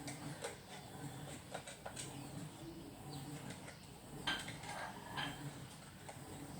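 Faint scattered clicks and taps of small parts being handled while an electrical plug is being worked on, with a few sharper ticks about four and five seconds in, over a faint low hum.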